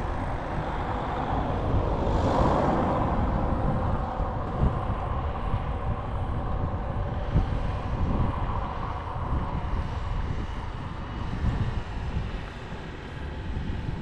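Wind buffeting the microphone: a steady low rumble with irregular gusts, swelling about two to three seconds in.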